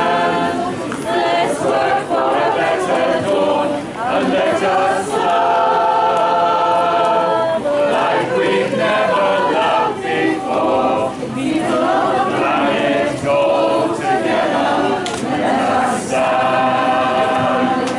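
A choir of men and women singing together, holding long notes.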